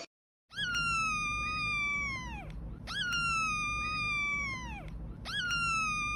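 Kitten meowing: three long, drawn-out meows of about two seconds each, each sliding slowly down in pitch and then dropping sharply at the end.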